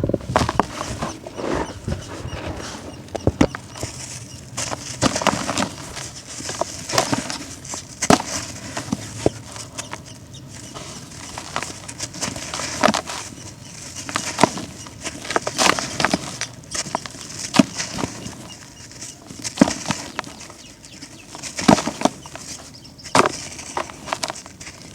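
Brittle crumbly chunks, concrete or dried earth, crushed and crumbled by hand: dense crunching and crackling with irregular sharp snaps, in louder bursts every second or two.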